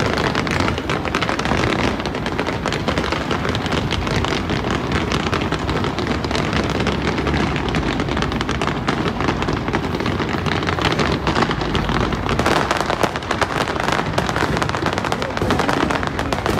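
Fireworks display going off: a dense, unbroken crackle of many rapid pops and bursts.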